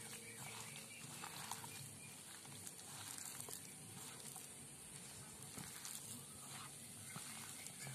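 A hand mixing and squeezing wet gram-flour batter with chopped banana stem in a steel bowl: faint, with irregular soft clicks throughout.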